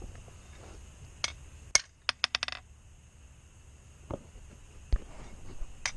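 Metal blacksmithing tools clanking and clinking: a few scattered sharp metal strikes, with a quick run of four or five ringing clinks about two seconds in.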